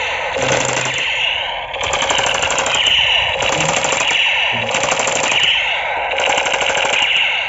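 Battery-powered toy assault rifle's electronic firing sound effect: a rapid machine-gun rattle from its speaker in about five bursts of a second or so, with short breaks between them, over a wavering high tone.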